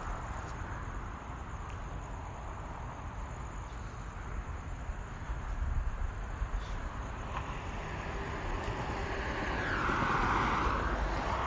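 Cars passing on a road: a steady low traffic rumble, with one car growing louder and passing about ten seconds in.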